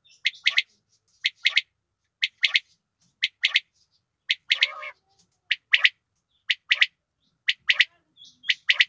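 Female common quail calling: a sharp, high double note repeated about once a second, nine times, sometimes with a softer extra note just before the pair.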